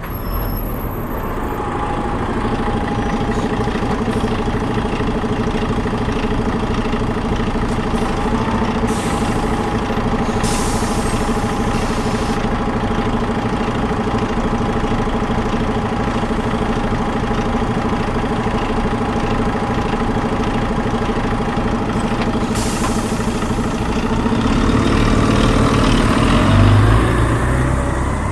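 A bus engine idling steadily, with hisses of compressed air from the brakes about 9, 11 and 23 seconds in. Near the end the engine revs up and grows louder as the bus pulls away.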